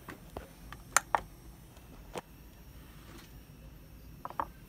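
A few light, scattered clicks and taps as a small plastic digital kitchen scale is handled, with a close pair of taps near the end as the metal flange nut is set on its plate.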